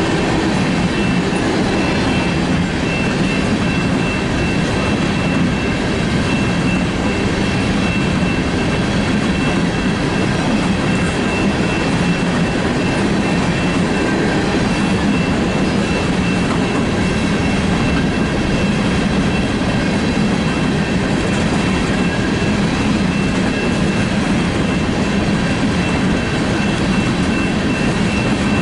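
Empty coal cars of a BNSF freight train rolling past, a steady rumble of steel wheels on rail with some clickety-clack. A thin, steady high-pitched tone runs over the rumble.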